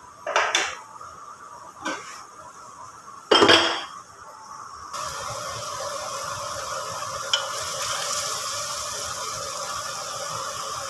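A spatula clatters against a plate and cookware three times in the first four seconds, the third loudest. Then onion-tomato masala sizzles steadily in oil in a pressure cooker.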